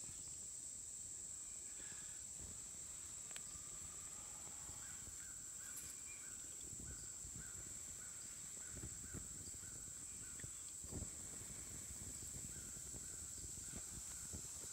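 Steady high-pitched drone of insects, with a bird calling in a quick run of short repeated notes for several seconds midway through.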